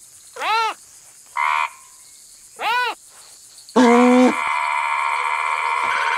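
Stylised cartoon nature sound effects: a steady insect-like chirring bed, with two short rising-then-falling calls about half a second and near three seconds in and a brief tone between them. About four seconds in comes a loud low honk, which gives way to a steady buzzing drone.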